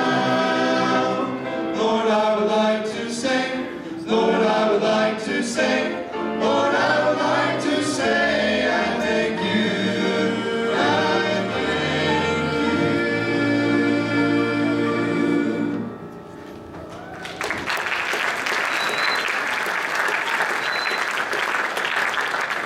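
Several voices singing a gospel song, ending about sixteen seconds in, followed by applause.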